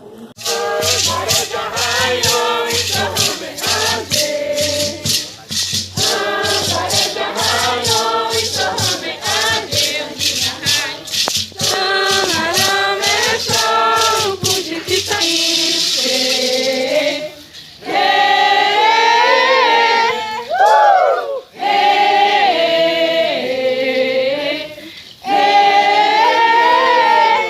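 A song sung by several voices over a shaken rattle that keeps an even beat for about the first fifteen seconds. After that, the voices hold longer notes.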